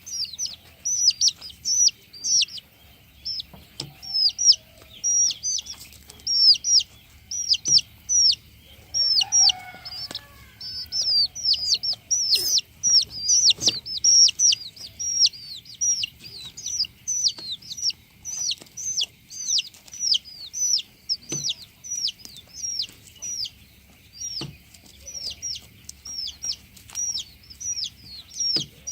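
Broiler chicks peeping without pause: many short, high, falling chirps, several a second and overlapping, with a brief lower call from an older bird about nine seconds in.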